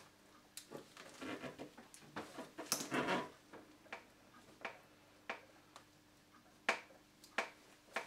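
Clear plastic fridge door shelf being handled and pushed into position against the door liner: scattered light plastic clicks and knocks with rubbing, loudest in a short scraping cluster about three seconds in.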